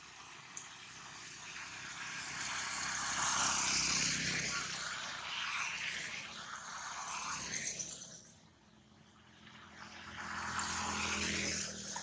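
Motor vehicle noise: a broad engine-and-tyre hiss with a low hum swells over the first few seconds, dies down about eight seconds in, then swells again near the end as another vehicle passes.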